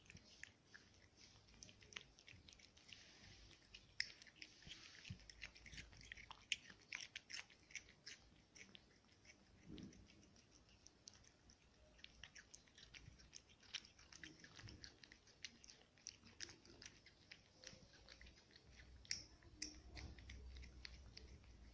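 A cat chewing soft food from a plate: faint, quick clicks of its mouth, several a second, coming in runs.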